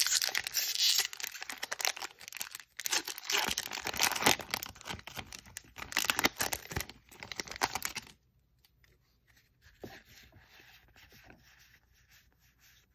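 Foil wrapper of a Magic: The Gathering collector booster pack being torn open and crinkled by hand. The crackling stops about eight seconds in, leaving only faint rustles.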